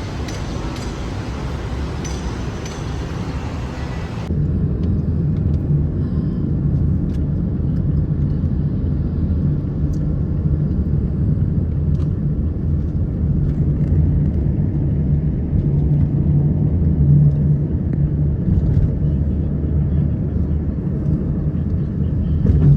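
A road vehicle running, a steady low rumble. About four seconds in, a higher hiss cuts off abruptly and the rumble becomes louder.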